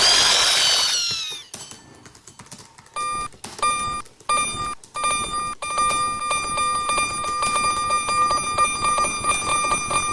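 Electronic railroad crossing alarm, a fumikiri warning sound, ringing a rapidly repeating beeping tone from about three seconds in. It follows a loud noisy burst whose pitch falls away over the first second and a half.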